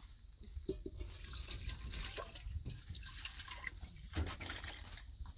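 Water splashing and dripping, with irregular small clicks and a light hiss.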